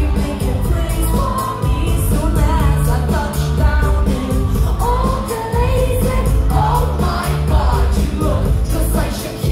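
Live pop music: women singing into microphones over a band, with a heavy bass and a steady beat.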